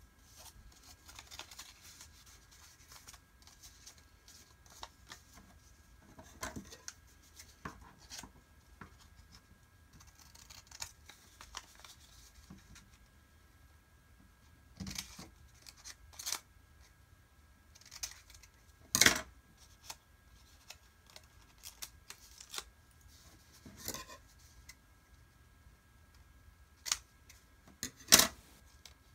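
Scissors snipping through folded printer paper in short, scattered cuts, with soft rustling of the paper being handled and folded between them. The sharpest snips come about two-thirds of the way in and just before the end.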